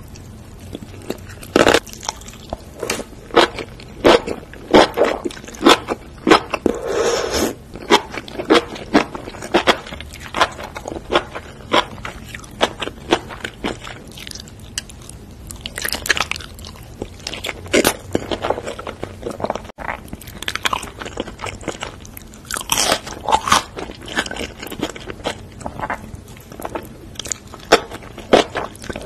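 Close-miked eating ASMR: a person biting and chewing sauce-coated enoki mushrooms, with wet, crunchy bites and many small sticky mouth clicks in an irregular stream. There is a quieter spell around the middle.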